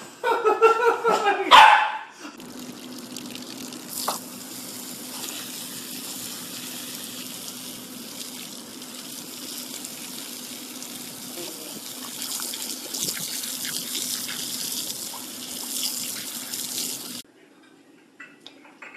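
A dog vocalizing loudly for about two seconds, its calls bending in pitch. Then water runs steadily from a tap or sink with a low hum under it, and cuts off abruptly near the end.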